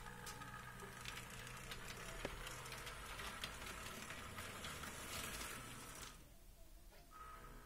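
HO scale model diesel locomotive running along the track: a faint hiss with light clicks and a thin steady whine, cutting out briefly near the end.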